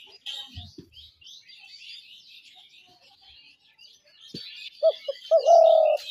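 Spotted dove cooing near the end, two short notes then a longer drawn note, over constant high chirping of small birds.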